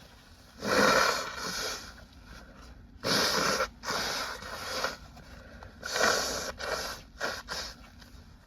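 A person blowing their nose hard several times, each blow a noisy burst of about half a second to a second, the last ones broken into short pulses.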